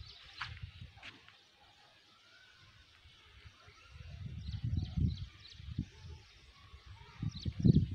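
Outdoor ambience with wind gusting on a phone microphone, making low irregular rumbles about halfway through and again near the end, with faint short chirps above.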